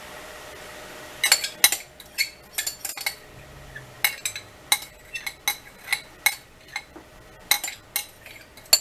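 A kitchen utensil clinking repeatedly against a dish as sauce is spooned and spread onto chicken wings: a long run of sharp, irregular clinks starting about a second in, roughly two a second.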